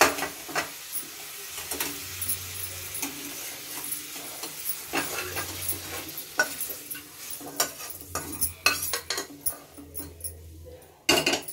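Vegetable masala sizzling in a kadai while a metal spoon stirs and scrapes it. Partway through, the mixture is scraped from the kadai into a pressure cooker with repeated clinks and scrapes of metal, and a louder metal clank comes near the end.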